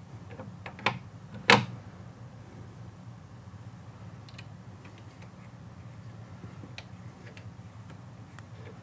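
A few sharp clicks as a metal handle is fitted to an aluminum sliding glass door panel, the loudest about a second and a half in. Then faint scattered ticks as an Allen key turns the handle's set screws, over a steady low hum.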